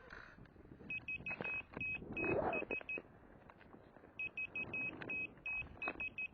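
Groups of short, high electronic beeps repeating in quick runs, over wind buffeting the microphone.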